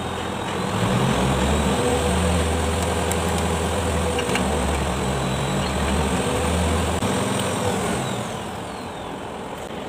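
A motor vehicle engine running, swelling about a second in and fading away near the end, with a thin high whine that climbs and later slides back down.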